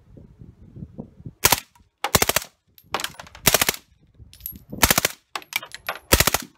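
Suppressed H&K MP5 submachine gun (MP5SD) firing about seven short full-auto bursts, each a quick string of muffled shots, with brief pauses between them.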